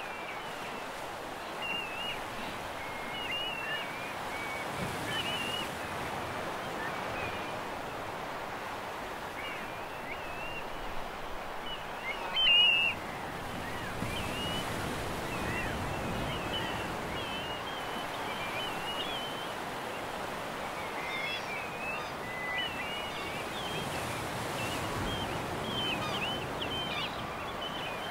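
Steady rush of sea surf, with small birds singing and chirping on and off throughout and one louder call about twelve seconds in.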